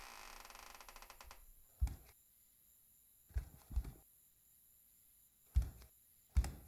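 A wooden door creaking slowly open, the creak's clicks slowing and fading out. Then come slow, heavy footsteps thudding on wooden floorboards, five of them, the middle ones in a close pair.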